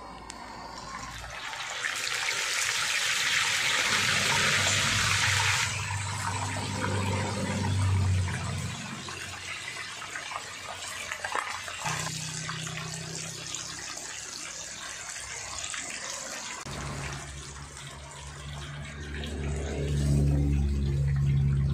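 Whole flour-coated tilapia deep-frying in a wok of hot oil: a loud burst of sizzling hiss about two seconds in as it goes into the oil, settling into steady bubbling and crackling. A low hum comes and goes beneath it, loudest near the end.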